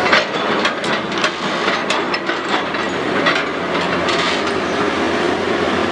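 Heavy quarry machinery at work: a steady engine with a quick, irregular series of sharp clanks and knocks, busiest in the first two seconds, then thinning out.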